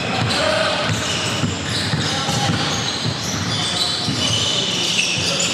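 Basketball game play on an indoor court: many short, high squeaks of sneakers on the floor, with the ball bouncing and scattered voices.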